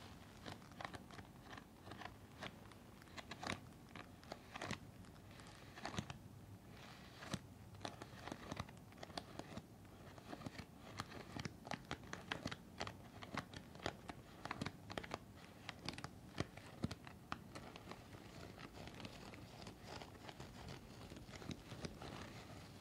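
N95 respirator mask being handled, crinkling and scratching in many short, irregular crackles.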